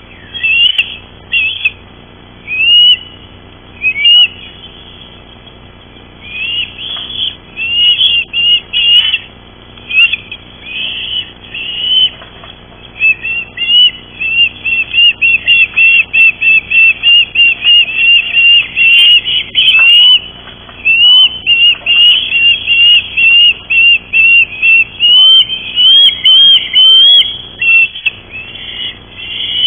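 Ospreys calling at the nest with high, whistled chirps: scattered calls at first, then long quick runs of several chirps a second through the second half.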